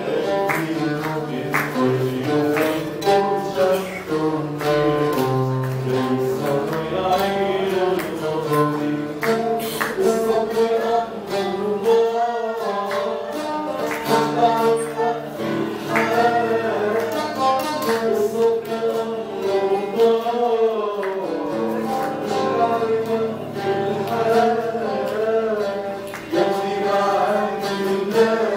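A man singing while he strums and plucks a guitar, the voice breaking off briefly about twelve and twenty seconds in while the strings go on.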